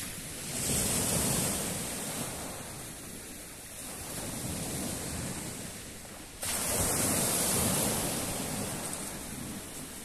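Small sea waves breaking on a pebble shore and washing back over the stones, coming in two swells, the second starting suddenly about six seconds in.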